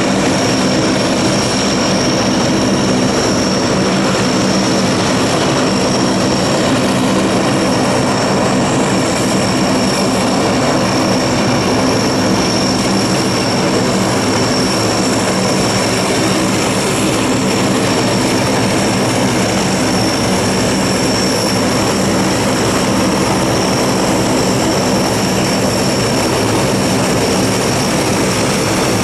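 Lockheed C-130H Hercules taxiing with all four Allison T56 turboprop engines running: a steady propeller drone with a high turbine whine over it.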